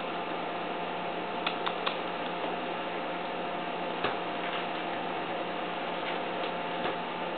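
Puppy gnawing a red rubber Kong toy on a tile floor: a few scattered sharp clicks and taps, three in quick succession about a second and a half in, over a steady hiss and hum.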